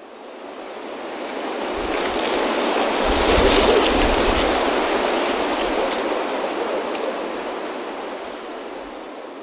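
A gust of wind blowing dry leaves along: a rushing rustle with scattered crackles that swells to a peak about three and a half seconds in, then slowly dies away.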